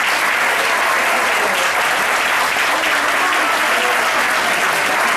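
Audience applauding steadily, with some voices talking through the clapping.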